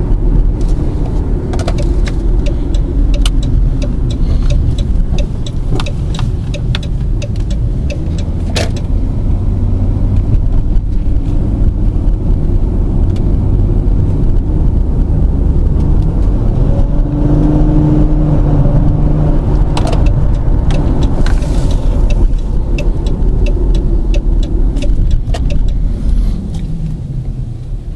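Car driving on city streets, heard from inside the car: a steady low rumble of engine and road, with scattered short clicks and rattles. The rumble eases off near the end as the car slows.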